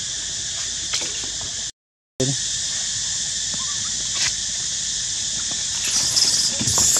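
Steady high-pitched droning of insects in the background, broken by a short total dropout about two seconds in. Faint clicks and rustles, with a louder rustle near the end, come from monkeys moving over the wooden railing and dry leaves.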